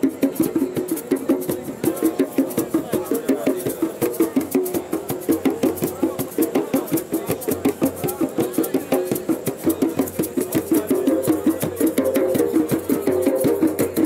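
Drum music with a fast, steady beat of about five strikes a second, which the beach crowd is dancing to.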